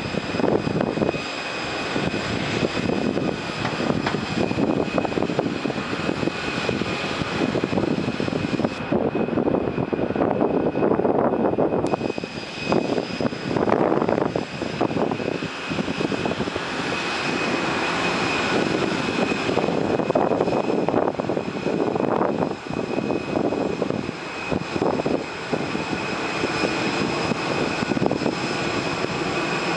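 Boeing 747-400 jet's steady high turbine whine over a rushing noise that swells and fades every few seconds.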